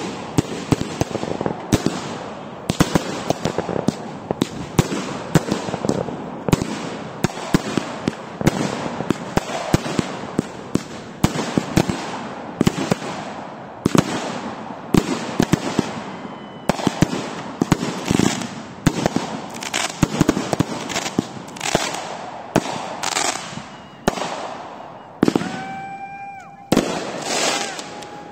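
Fireworks going off in quick succession: a dense string of bangs and crackles, several a second, as aerial shells burst overhead. Near the end the bangs thin out and a few high whistling tones sound.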